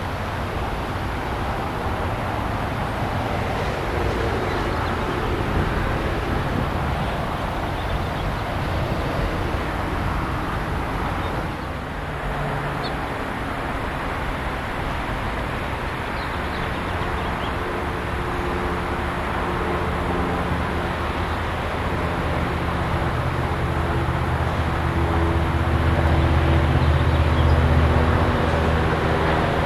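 A steady broad rumble of an approaching Coaster commuter train. After a brief dip about twelve seconds in, the engine drone of an F59PHI diesel locomotive leading another Coaster train comes in and grows steadily louder toward the end as it approaches.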